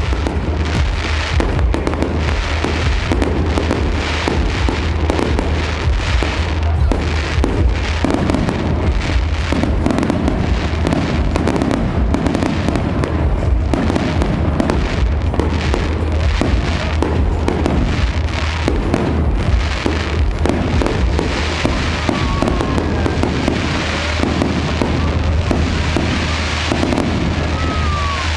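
Fireworks display: a continuous run of shell bursts and crackling bangs, with music playing underneath and a few falling whistles near the end.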